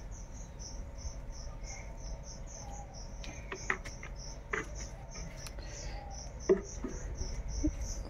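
Insect chirping in a steady high-pitched pulse, about three chirps a second. A few short knocks and thumps come through, the loudest about six and a half seconds in.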